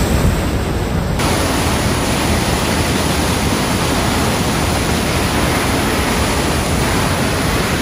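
Water gushing through an open dam gate and churning into white water against the concrete piers below: a loud, steady rush that turns hissier about a second in.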